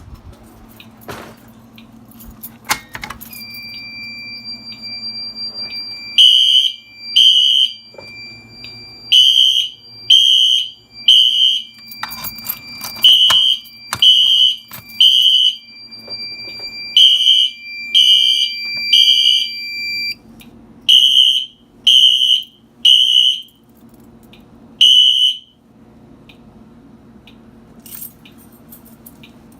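Fire alarm horns sounding the temporal-three evacuation code: three loud beeps about a second apart, then a pause, repeated. Under them a steady high tone runs from near the start until about two-thirds through. The horns stop after a last single beep near the end, as the alarm is silenced.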